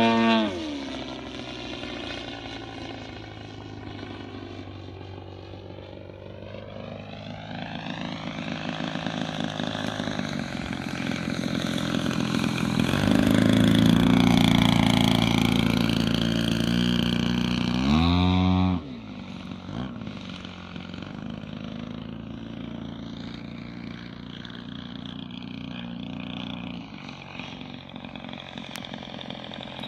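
Radio-control aerobatic model plane's motor and propeller, throttled up and down as it flies. The pitch drops as it throttles back at the start, then builds to its loudest in the middle. After about 18 seconds it is cut back sharply with a falling pitch and runs quieter.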